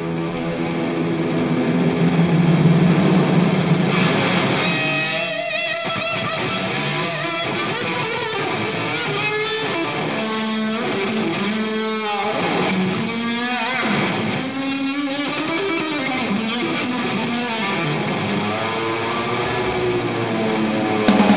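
Electric guitar playing a solo line. It holds sustained notes for the first few seconds, then moves into a run of notes bent up and down in pitch. A louder, fuller band sound comes in right at the end.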